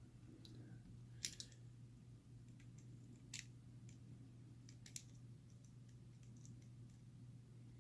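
A few faint, sharp clicks of small metal tools and padlock parts being handled, about four in all, over a steady low hum.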